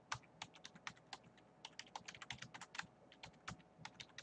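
Computer keyboard typing: a quiet, quick, uneven run of keystrokes as a password is entered.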